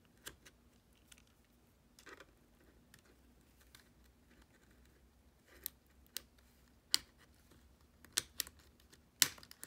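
Small plastic clicks and scrapes of a pick prying up a keycap on a MacBook Pro butterfly keyboard, sparse at first, with a few sharper snaps in the last three seconds as the keycap is worked loose.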